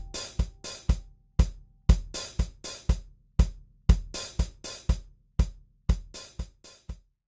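Background music reduced to a drum beat: kick drum with hi-hat and cymbal hits at a steady tempo of about two beats a second, stopping just before the end.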